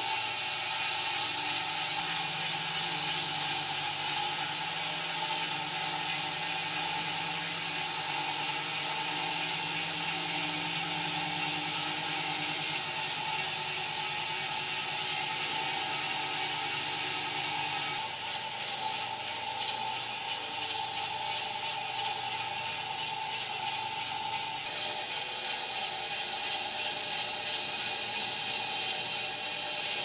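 Wide-cut bandsaw mill running through a cut in a silver maple log: a steady, loud hiss of the blade in the wood over the mill's motor hum. The low part of the hum drops away a little over halfway through.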